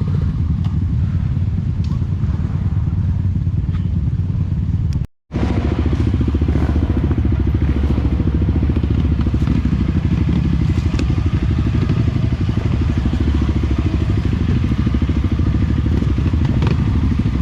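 Enduro dirt bike engine running steadily at low revs in slow trail traffic. The sound cuts out completely for a moment about five seconds in, then picks up again.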